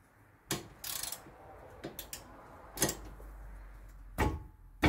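Scattered metallic clicks and knocks of a wrench with a 21 mm socket being fitted onto a front brake caliper bracket bolt, with two louder knocks near the end.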